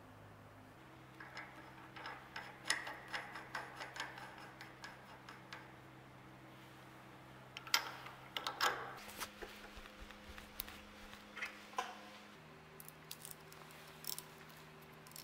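Small metallic clicks and clinks of a steel hex nut being threaded by hand onto a lathe-held saw-blade arbor and then tightened with a socket wrench, with a louder clatter about eight seconds in as the wrench goes on. A faint steady hum runs underneath.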